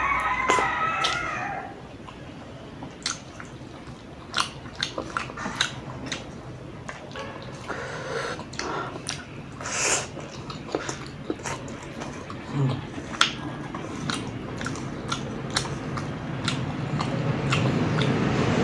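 Instant noodles being slurped and chewed close to the microphone, with a steady run of wet smacks and clicks. There is a wavering, whistling slurp at the start and a loud slurp about ten seconds in.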